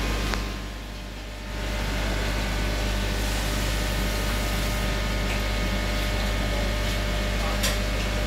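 Steady hum and hiss of aquarium equipment, with air bubbling up from an airstone. The level dips briefly about a second in.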